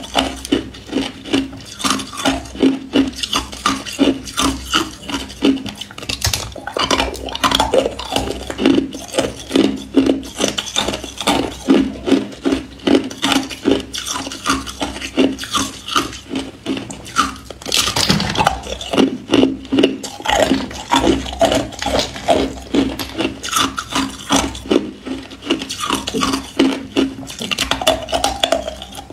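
Hard ice from a clump of frozen-together crushed ice being bitten and chewed: a steady run of sharp crunches, about two or three a second.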